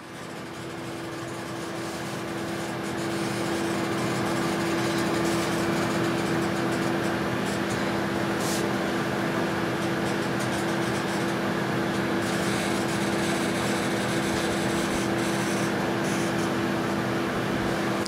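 Panasonic microwave oven running, with a steady transformer hum and a raspy buzzing hiss from plasma burning around a halogen downlight inside. The hiss grows over the first few seconds, then holds steady.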